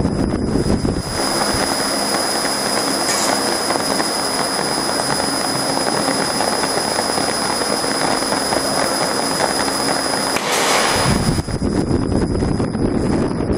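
CO2 laser marking machine running while it engraves wood: a steady hiss with a thin, high, steady whine, broken by a low rumble in the first second and again near the end.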